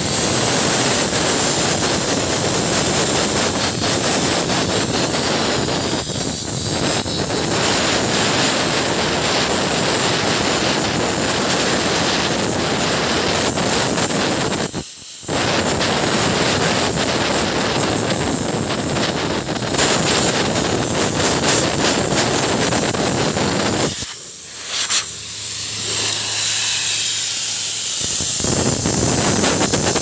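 Compressed air hissing from an air blow-gun nozzle, blasted into an opened electronic accelerator pedal's sensor housing to blow out water that had collected inside, the cause of the pedal's intermittent errors. The blast is loud and steady, cutting out briefly about halfway through and again a few seconds before the end.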